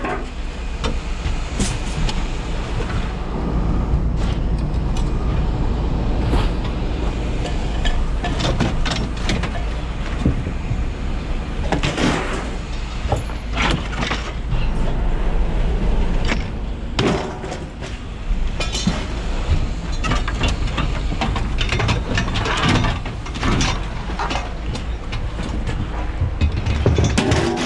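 Scrap metal being unloaded from a van and thrown onto a scrapyard pile: repeated metal clangs and bangs at irregular intervals over a steady low rumble.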